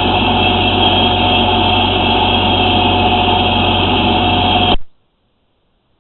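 Steady machine drone with a low hum and a steady whine, cutting off abruptly a little under five seconds in.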